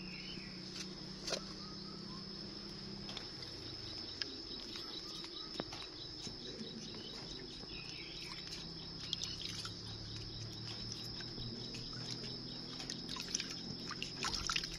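Steady high-pitched insect drone, joined for several seconds in the first half by a rapid pulsing insect call, with faint drips and small splashes of bath water in a metal basin.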